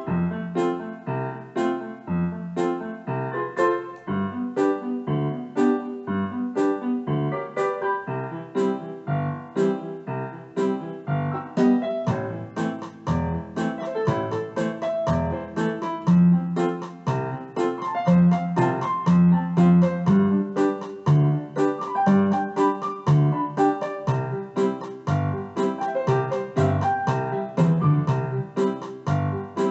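Background piano music: a steady run of quick keyboard notes over a bass line, with no speech.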